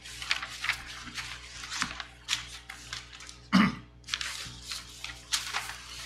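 Papers rustling and being shuffled in short, irregular bursts, with one cough about three and a half seconds in.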